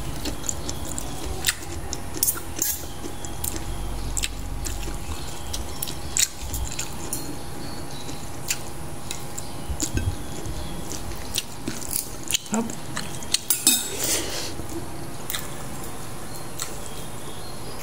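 A spoon and fork clicking and clinking against ceramic plates and bowls at irregular intervals during a meal, with a louder cluster of clinks about fourteen seconds in.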